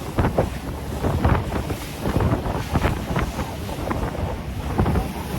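Wind buffeting the microphone on a moving boat, with waves slapping and splashing against the hull in irregular gusts.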